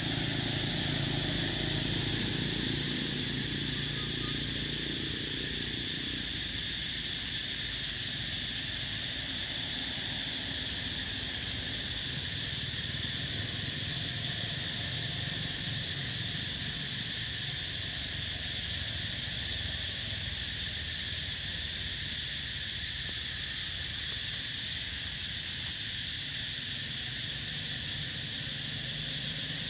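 Steady, unbroken chorus of insects buzzing at a high pitch. A low hum fades out in the first few seconds.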